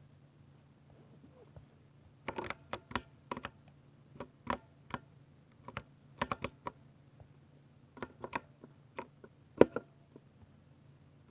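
Keystrokes on a 60% Ducky mechanical keyboard with silver switches: irregular clicks in short runs starting about two seconds in, the loudest a single hard stroke near the end.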